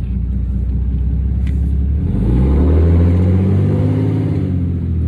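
Straight-piped 6.7 Cummins inline-six turbodiesel accelerating under way, heard from the cab with the windows down. The engine note rises about two seconds in, then holds.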